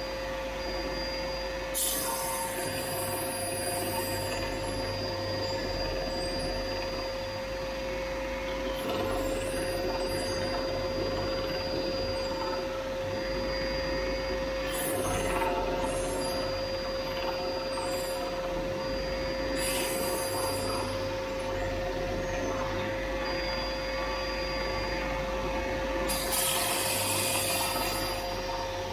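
Bench belt sander running with a steady motor hum, while a small wooden block is pressed against the belt again and again, each pass adding a loud rasping hiss of sanding.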